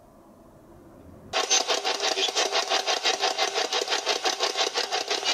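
Loud, fast-pulsing electronic static, many pulses a second, starting suddenly about a second in.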